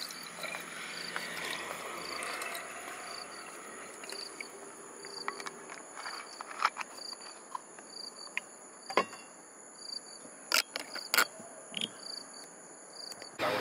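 Crickets chirping outdoors at night in a steady run of short, high chirps. A few sharp clicks cut through, the loudest two near the end.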